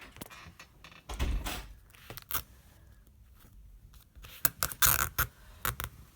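Clicks, knocks and rustling of hands handling parts of a disassembled MacBook Air laptop, in two busier bursts: one about a second in, and a louder cluster of sharp clicks near five seconds.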